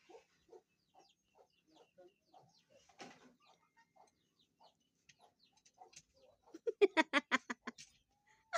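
Chickens clucking: soft single clucks every half second or so, then a loud, rapid run of clucks, about ten a second, starting about six and a half seconds in and lasting over a second.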